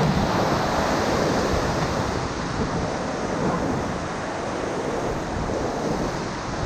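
Whitewater rushing steadily around a raft as it runs a Class III rapid.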